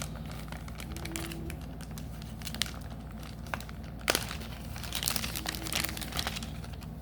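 Plastic card-pack packaging crinkling and rustling as it is handled, with irregular crackles, a sharp click about four seconds in and a busier patch of crinkling soon after.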